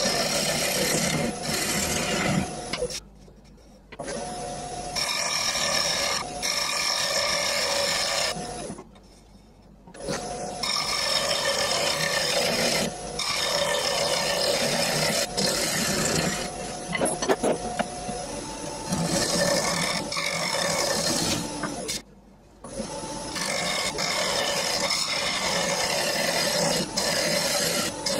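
Bowl gouge cutting the inside of a wet-turned ash bowl spinning on a wood lathe: a steady hiss and rasp of shavings peeling off, with three brief breaks where the tool lifts from the wood.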